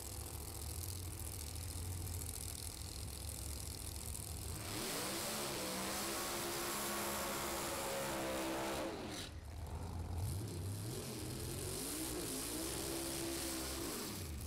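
Top Doorslammer drag cars' V8 engines idling with a low rumble, then revving up about five seconds in, held at high revs for a few seconds, dropping, and revving and holding again.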